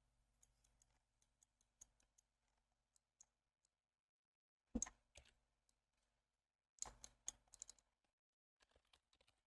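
Computer mouse clicks and keyboard keystrokes, faint and scattered, with louder clusters of clicks about five and seven seconds in.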